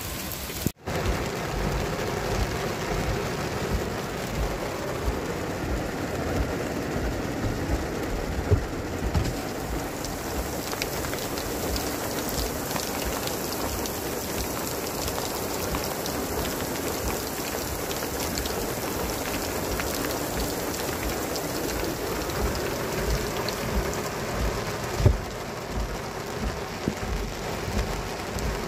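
Heavy downpour: rain pelting steadily on and around a car, heard from inside it. The sound cuts out for an instant about a second in.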